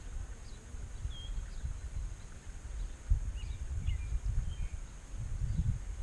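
Scattered short, high bird chirps, a dozen or so, over an uneven low rumble with a faint steady high hiss.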